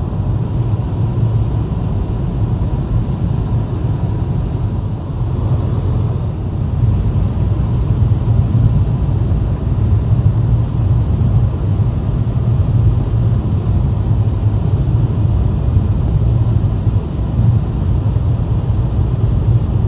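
Car driving on the highway: a steady low rumble of road and engine noise.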